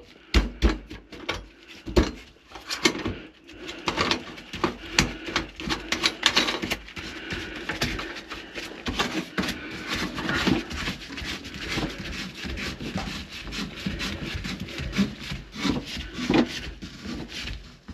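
Stiff sink drain fittings being worked by hand, giving repeated rubbing and scraping sounds with many irregular small knocks.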